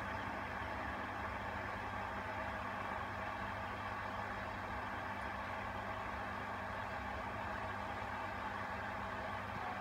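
Aquarium pump or filter running, a steady mechanical hum with a low tone and an even whir above it that does not change.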